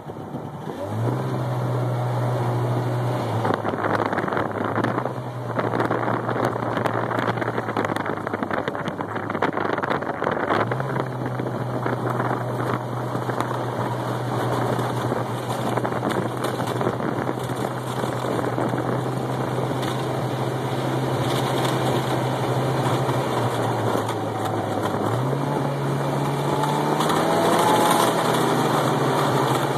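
Snowmobile engine running at a steady pitch that starts about a second in, drops, fades briefly and picks up again a few times, over a steady rush of wind.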